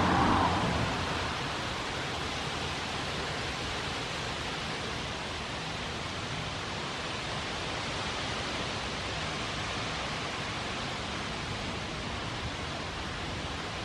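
Steady, even rushing noise with no distinct events in it.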